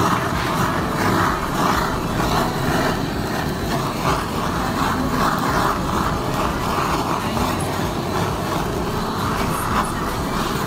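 Steady rushing of a handheld butane torch flame held over cheese on a stone griddle, with roadside traffic noise underneath.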